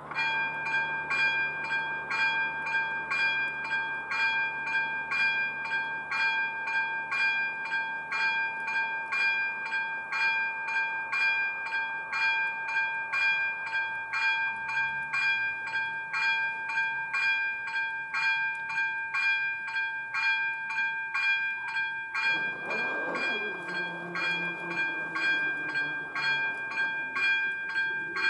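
AŽD 97 level-crossing warning bell, starting suddenly and ringing in evenly repeated electronic strokes over a steady tone. About 22 seconds in, a lower hum slides down and holds for a few seconds as the barrier arms are lowered.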